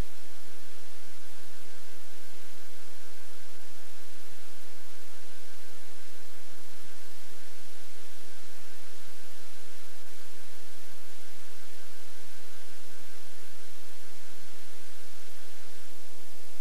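Steady electrical hum with a constant hiss over it and a few thin steady tones above, unchanging throughout.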